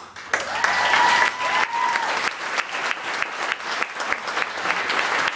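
Audience of graduates and guests applauding, a dense steady clapping, with one long high held note, a whoop or whistle from the crowd, over it about a second in.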